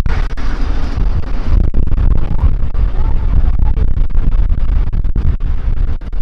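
Ride-on miniature train running along its track, a steady low rumble with wind buffeting the microphone and irregular small knocks.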